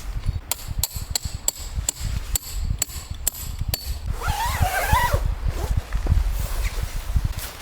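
Wind buffeting the microphone with a steady low rumble, under a run of sharp metallic ticks with a light ring, about three a second, that stop after about four seconds. Then comes a short wavering, whining cry.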